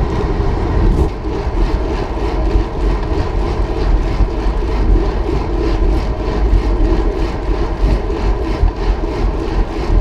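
Wind rushing over the microphone of a handlebar-mounted camera on a moving bicycle, a loud steady low rumble, with the tyres rolling on pavement underneath.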